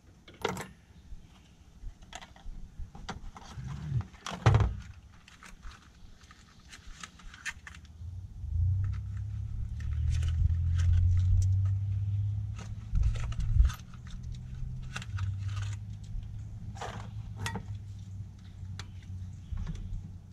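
Irregular metallic clicks and clinks of hand tools and parts being handled in a truck's engine bay during spark plug replacement, with a low rumble joining about eight seconds in.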